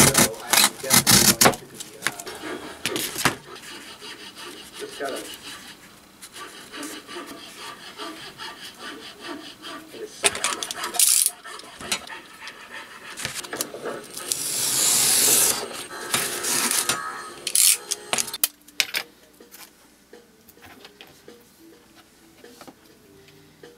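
Snap-off utility knife slicing through corrugated cardboard in a series of rasping strokes, the longest and loudest about two thirds of the way in, with cardboard pieces handled and laid down between cuts. It grows quieter near the end.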